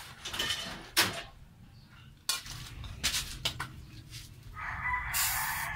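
Metal clinks and knocks as a wrench and aerosol can are handled at a motorcycle's front wheel hub, then, about four and a half seconds in, a WD-40 aerosol can hissing as it sprays a rusted axle nut to loosen it.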